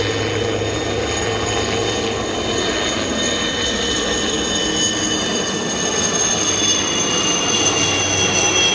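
Helicopter flying low overhead: steady turbine whine and rotor noise, the high whine slowly dropping in pitch and the sound growing a little louder toward the end.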